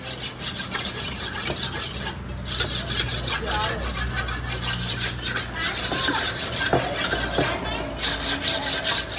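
Knife blade scraped back and forth on a flat sharpening stone in quick, even strokes, with a couple of short pauses.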